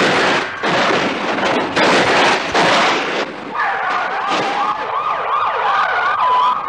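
A 1974 Lincoln Continental Mark IV rolling over and sliding on its roof: loud crunching and scraping of the metal body on the pavement, in several heavy crashes. About halfway through, a police siren starts, yelping up and down about three times a second, then holding one steady tone just before the end.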